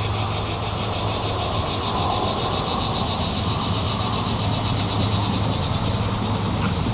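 A motor running steadily with a constant low hum, over an even rushing noise.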